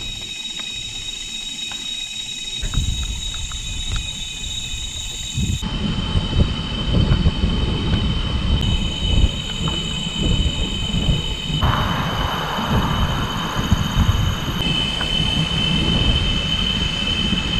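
Cicadas droning in steady high-pitched tones, the chorus changing abruptly several times, over a low rumble.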